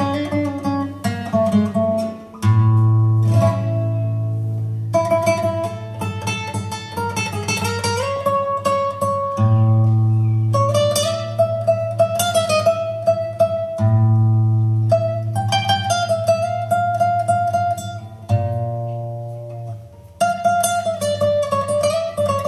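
Live instrumental passage by a small Greek rebetiko-style band: a plucked-string melody with acoustic guitar, double bass and accordion. Several times it pauses on a long held chord over a sustained bass note.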